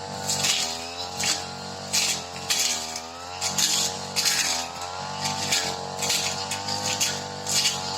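Supra SPR328 brush cutter engine running under load, its pitch dipping and recovering as it bogs in the grass. Repeated swishing bursts, about one every half second to a second, as it cuts through tall, thick grass.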